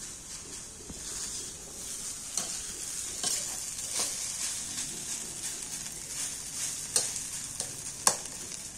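Fried rice sizzling in a wok while a metal spatula stirs and scrapes through it, with a few sharp clicks of the spatula against the wok.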